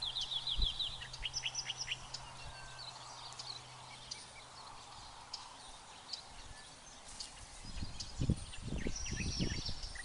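Wild birds calling in open country: a quick run of descending chirps at the start, then scattered chirps and short high trills. Low rumbling gusts of wind buffet the microphone in the last couple of seconds.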